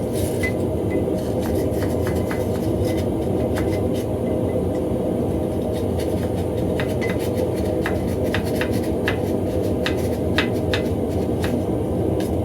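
Steady low roar of a running forge, with irregular scratching and clicking from a wire brush scrubbing forge scale off the hot steel.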